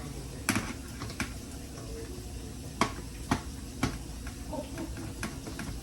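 Scattered sharp clicks and taps of small hand tools against metal, about six spread over several seconds, as small screws are worked out of a dishwasher door.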